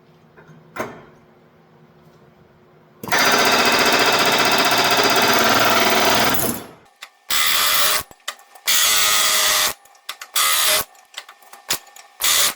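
Heavy-duty pneumatic air hammer (Chicago Pneumatic CP717) firing rapidly to drive out a worn bushing from an excavator H-link: one long burst of about three and a half seconds, then several short bursts.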